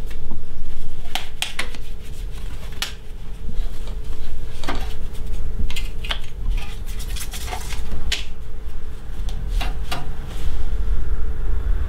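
A small paintbrush dusting an industrial sewing machine. The brush is worked over the machine's head, and its handle and bristles knock and scrape on the hard casing, giving irregular light clicks and taps, about a dozen, over a low steady hum.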